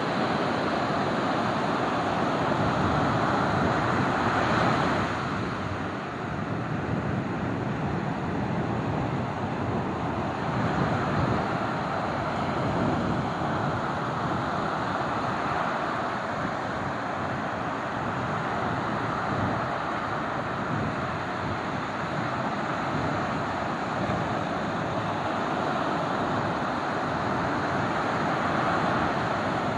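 Steady rush of ocean surf breaking on the beach, swelling about four seconds in and again about ten seconds in, with some wind on the microphone.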